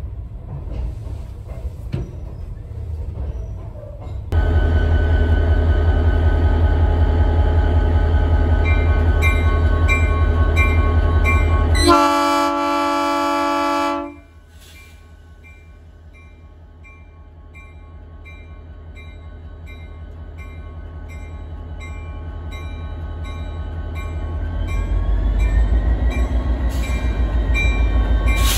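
Union Pacific GP30 diesel locomotive's air horn sounds a long blast that starts suddenly about four seconds in, swells to its loudest just before it cuts off, while the locomotive bell rings about twice a second. After that the locomotive's diesel engine runs and throttles up, its sound rising steadily, with the bell still ringing.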